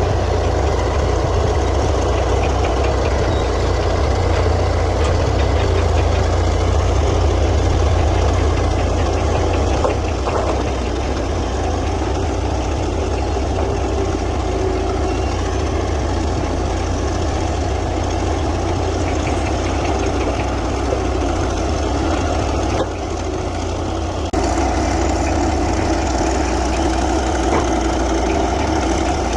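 Komatsu D155A bulldozer's diesel engine running steadily, with a slight drop in level about ten seconds in and a brief dip in level about two-thirds of the way through.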